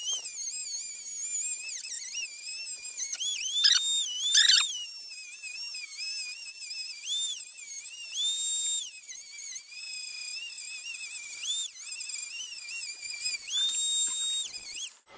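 Handheld rotary tool with a cut-off wheel grinding into a steel rifle muzzle brake: a high-pitched whine whose pitch dips and recovers over and over as the wheel bites into the metal and eases off. It stops just before the end.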